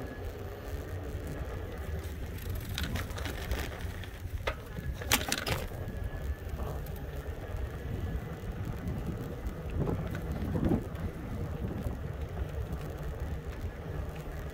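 E-bike being ridden: a steady low rumble of the ride, with a few sharp clicks or rattles, the loudest about five seconds in.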